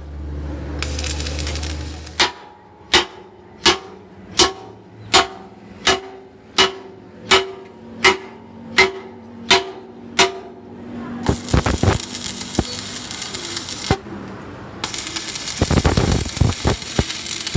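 About a dozen evenly spaced hammer blows on a steel truck axle housing, roughly one every three-quarters of a second, each with a short metallic ring. Then, from about 11 seconds in, the steady crackling hiss of a stick-welding arc, which breaks off briefly and starts again.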